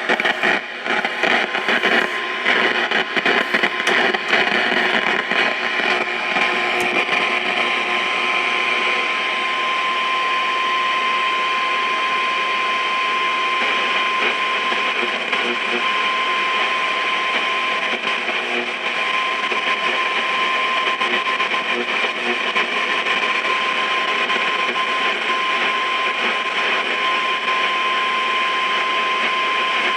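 Marconi 2004 seven-transistor radio's speaker putting out shortwave static with its antenna up: crackling for the first several seconds, then a steady hiss with a thin whistle tone. The noise is radio-frequency interference, which the owner says is swamping the band.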